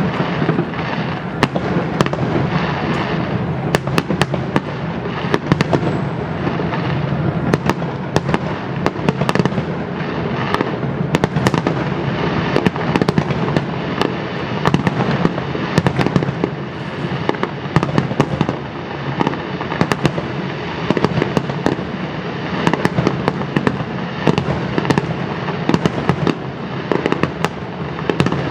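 Aerial fireworks display in a continuous barrage: many sharp bangs and crackles, several a second, over an unbroken rumbling wash of overlapping bursts.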